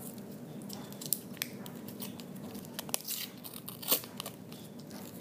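Wax paper wrapper being pulled off a piece of saltwater taffy: scattered crinkling with a few sharp crackles.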